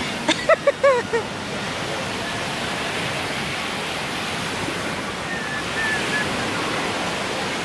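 A few short vocal sounds from a woman in the first second, then a steady wash of ocean surf.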